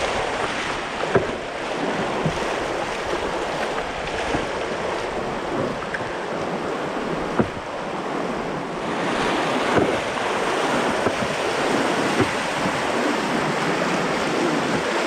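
Rushing whitewater of a river rapid around an open canoe, with wind on the microphone and a few sharp paddle splashes. The rush of water grows louder about nine seconds in.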